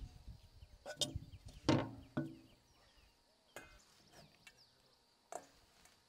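Scattered knocks and clinks of metal cookware as carrot and pepper pieces are handled in a stainless steel bowl and put into an aluminium pot. The loudest clank comes a little under two seconds in and rings briefly.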